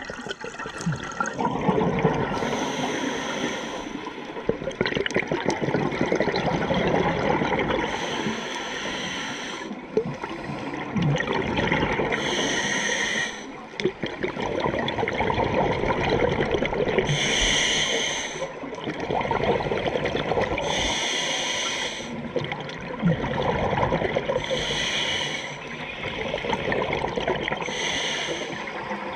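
Scuba diver breathing through a regulator underwater: seven hissing inhalations, roughly every four seconds, with the bubbling rush of exhaled air between them.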